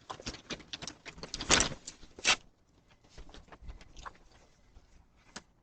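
A run of irregular clicks, knocks and rustles, like objects being handled. They come thick at first, with the loudest knocks about one and a half and two and a quarter seconds in, then thin out to scattered faint ticks.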